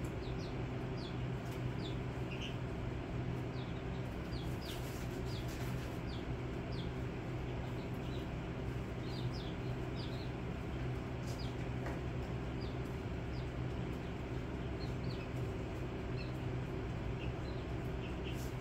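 Baby chicks peeping: short, high single peeps scattered irregularly, over a steady low hum.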